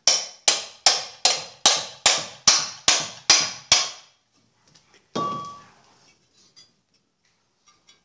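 Ten hard hammer blows, about two and a half a second, on the metal transmission of an Electrolux LT12 washing machine, knocking the mechanism out of its housing together with its bearing. About five seconds in there is a single metallic clank with a short ring.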